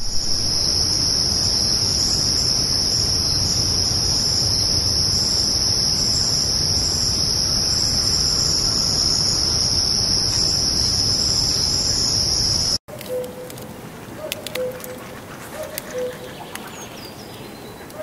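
A dense, steady chorus of insects trilling high and loud, which cuts off suddenly about 13 seconds in. A quieter forest takes over, with a dove cooing repeatedly and a few sharp clicks.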